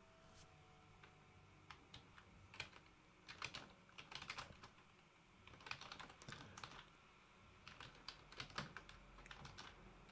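Faint typing on a computer keyboard: several quick bursts of key clicks with short pauses between them.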